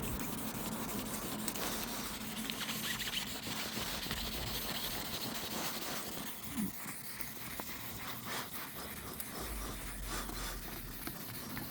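Faint, uneven rubbing and scraping of a polishing pad worked by hand over a car's painted panel, polishing back a sanded scratch.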